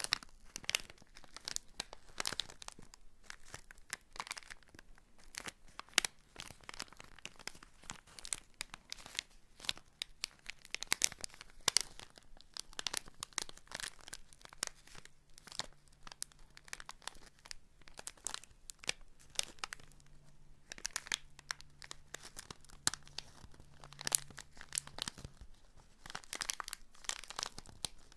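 Dense, irregular crinkling and crackling of a crinkly material being handled close to the microphone.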